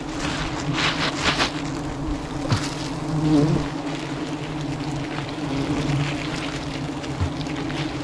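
A swarm of wild honeybees buzzing in a steady, even drone around the opened hive; the colony is calm, not agitated. A few brief rustling, scraping sounds in the first few seconds.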